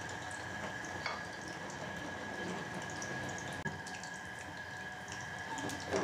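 Coated chicken strips frying in shallow oil in a pan on medium heat: a soft, steady sizzle with a few faint crackles.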